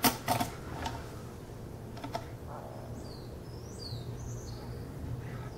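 Light clicks and taps of the Wicked Edge's strop paddles being handled and set against the clamped knife, over a low steady hum. A few faint high chirps come about three seconds in.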